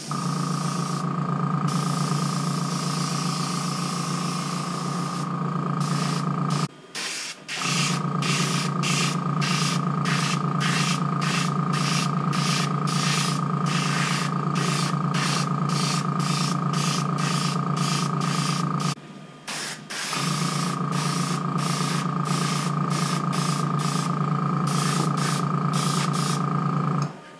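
Airbrush spraying paint in short, rapid bursts of hiss as the trigger is worked, over the steady hum of a small airbrush compressor. Everything stops briefly twice, about seven and nineteen seconds in.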